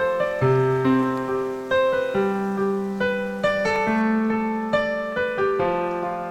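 Background music: a piano playing a melody of struck notes over held lower notes.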